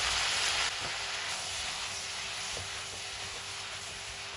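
Chopped zucchini, onions and tomatoes sizzling in hot oil in a pot, stirred with a silicone spatula. The sizzle eases gradually.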